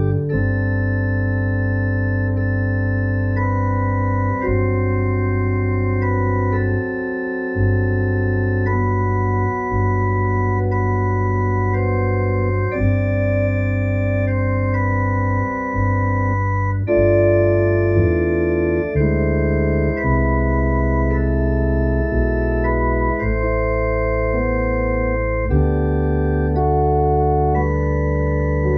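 Digital organ playing slow, sustained chords over held bass notes, the chords changing every second or two with no fade between them.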